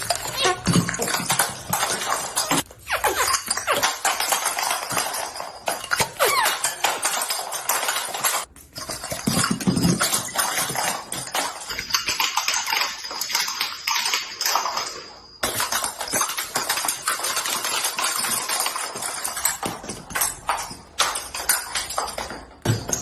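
Background music under a dense run of sharp clicks and pops. The sound breaks off abruptly a few times.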